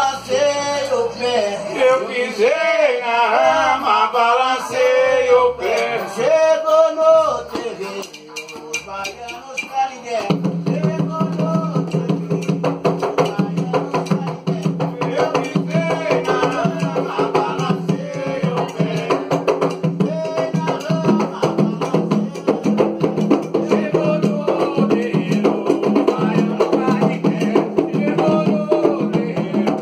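Atabaque hand drums beating a Candomblé rhythm under singing. A single voice carries the melody at first; from about ten seconds in, a fuller, steadier sound of several voices joins over denser drumming.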